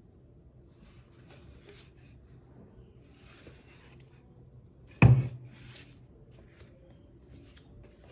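Faint rustling and scraping of parts being handled, then one sharp knock about five seconds in, like something hard set down on a desk, with a short ringing decay.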